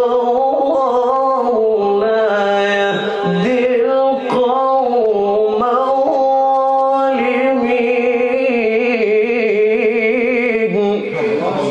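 A male Qur'an reciter's unaccompanied voice in a long melismatic passage of tajwid recitation, holding tones that waver and trill up and down the scale. The run ends about 11 seconds in.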